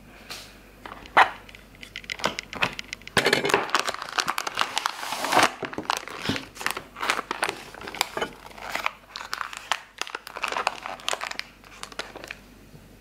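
A cornstarch box's white inner bag crinkling as it is pulled out and handled, with a sharp click about a second in and scissors cutting into the bag's folded top near the end.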